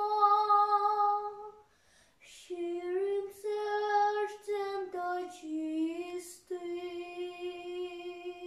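A young girl singing a Ukrainian folk song solo and unaccompanied. She holds a note, breaks off for about a second with an audible breath, then sings on in short phrases with quick breaths between them and settles into a long held note near the end.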